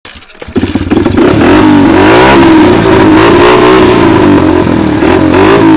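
A motor vehicle engine revving loudly, starting about half a second in, its pitch rising and falling over and over.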